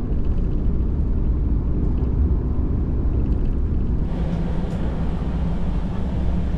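Steady low rumble of a Portuguese long-distance passenger train running, heard from inside the carriage. About four seconds in, a brighter hiss joins the rumble.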